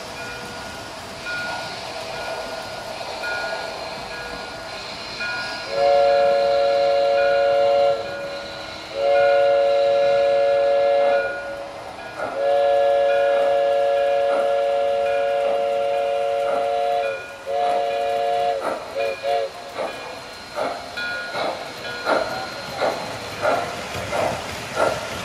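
O gauge model steam locomotive's sound system: a repeated ringing tone, then a multi-note steam whistle blowing four long blasts and two short toots, followed by steady chuffing about two puffs a second as the engine works.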